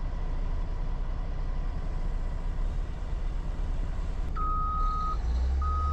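Semi truck's diesel engine idling with a low rumble, heard from inside the cab. About four seconds in, a backup alarm starts beeping, one long beep about every second, from a machine reversing during loading.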